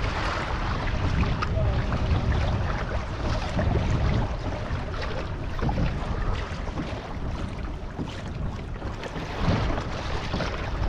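Wind buffeting the microphone with a steady low rumble, over choppy sea water splashing and slapping against the hull of a Hobie Passport 12 kayak under way.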